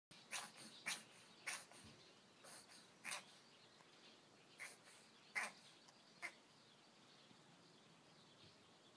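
A cat sneezing repeatedly, about eight short sharp sneezes in quick succession, then stopping a little after six seconds in. The uploader takes the sneezing for a sign that the cat has caught a cold.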